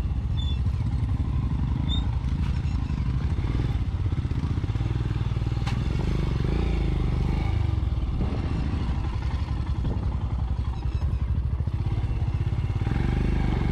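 Royal Enfield Scram 411's single-cylinder engine running steadily at low speed off-road, with the bike rattling over rough ground and one sharp click about six seconds in.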